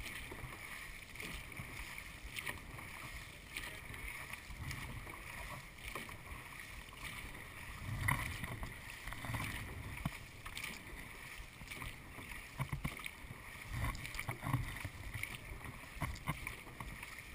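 Dragon boat paddles dipping and pulling through the water in time, splashes about once a second over a steady low rush of water past the boat.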